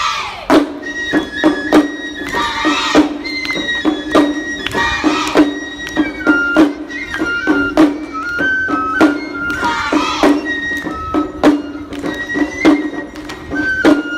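Traditional Japanese lion-dance (shishi-mai) festival music played live: sharp drum strikes, a high flute melody and a steady low drone, with several wavering high flourishes.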